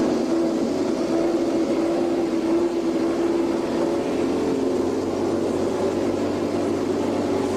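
Formula One car engine running at fairly steady high revs, its pitch creeping up slightly toward the end.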